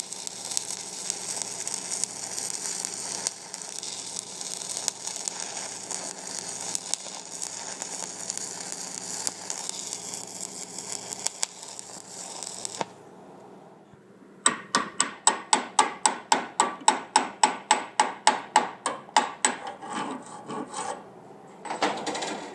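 Stick-welding arc from a 1/8-inch 7018 rod at about 120 amps, crackling and hissing steadily, then cutting off abruptly a little past halfway as the bead is finished. After a short pause comes a quick, even run of strokes, about four a second, as the slag is cleaned off the fresh weld bead.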